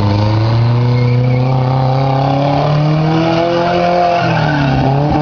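Racing engine under acceleration, its pitch climbing steadily for about four seconds, then dropping sharply near the end before climbing again, as on a gear change or a lift off the throttle.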